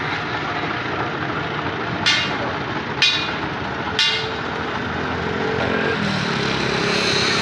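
Steady rumble of vehicle and engine noise, with three sharp knocks about a second apart in the middle, each ringing briefly like struck metal.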